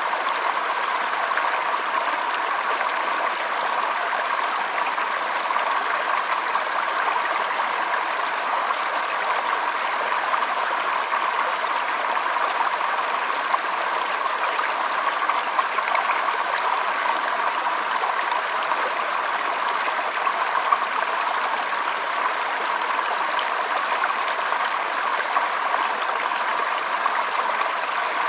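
Shallow stream trickling and flowing over stones, a steady even rush of water with small splashes and gurgles.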